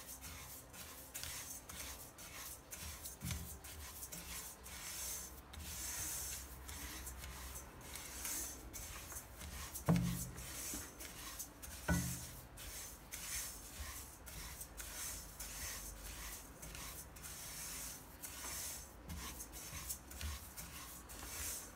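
Silicone spatula stirring sesame seeds in a dry nonstick pot: a rhythmic rustling scrape, stroke after stroke. The seeds are starting to crackle as they roast. Two short knocks sound about ten and twelve seconds in.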